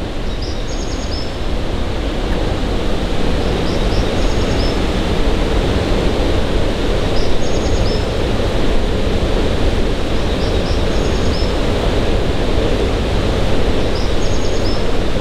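Steady rushing water of a nearby waterfall, a loud, even roar. A short, high chirping call repeats about every three and a half seconds over it.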